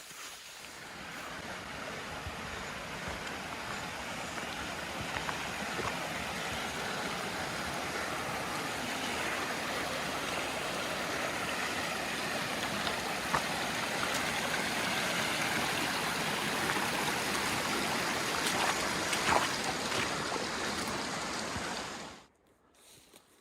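Rushing mountain stream: a steady wash of flowing water over rocks that swells in at the start and cuts off suddenly near the end.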